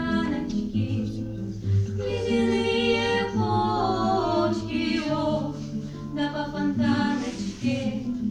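Voices singing a slow song in Russian, over sustained low accompaniment notes, with the melody entering strongly about two seconds in.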